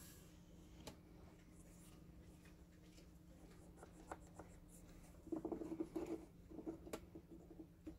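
A fine-pointed marking tool scratching on wood as it traces around the edge of a wooden block, in a quick run of short strokes in the second half, over a faint steady hum.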